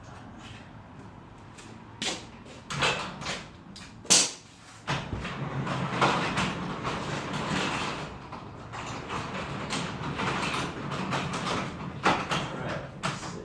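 Garage door moving along its tracks, a steady rolling rumble for several seconds, with sharp knocks and clicks before and after it.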